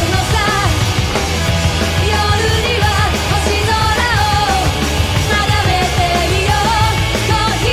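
Live rock band playing: a female vocalist singing a pop-rock melody over electric guitar, bass and drums.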